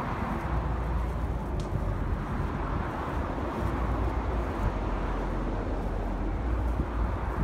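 Steady wind buffeting the microphone over a constant rush of highway traffic far below.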